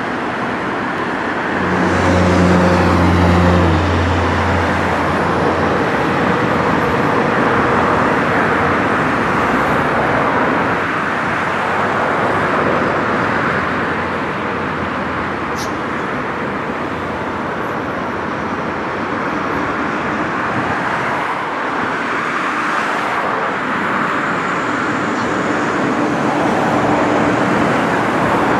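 Steady road traffic noise from passing cars, with a low engine hum swelling for a few seconds near the start.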